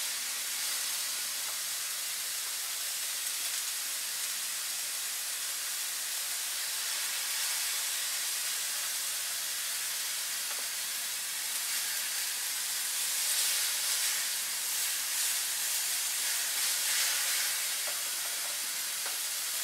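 Cube steaks sizzling steadily on a hot flat-top griddle as butter is spread over them with a knife. The sizzle gets louder and more crackly for several seconds from about twelve seconds in.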